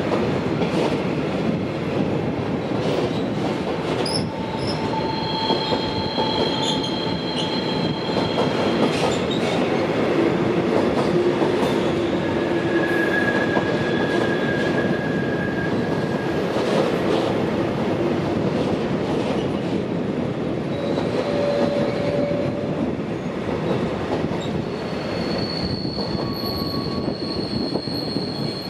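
Long freight train of box wagons rolling past on curved track: a steady rumble of wheels on rail, with wheels squealing at several different pitches that come and go.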